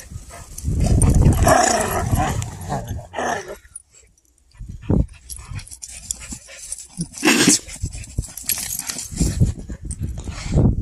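Dogs tussling over a muddy snowball: dog play noises mixed with snow crunching and scuffing under paws and jaws, with a brief lull about four seconds in.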